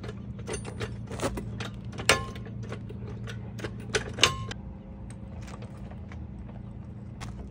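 Hand tools on the truck's front suspension as the bolts are tightened back up: a quick, uneven run of small metal clicks and clinks, with two louder metal clanks that ring briefly about two and four seconds in. After that the clicks thin out and grow fainter, and a steady low hum runs underneath throughout.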